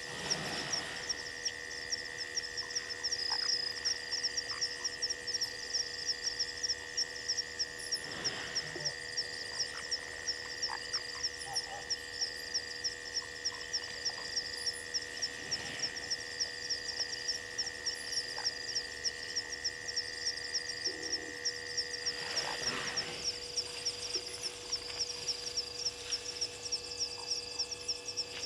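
Night chorus of frogs: a high chirp repeated about three times a second, over a steady high trill that stops about 23 seconds in.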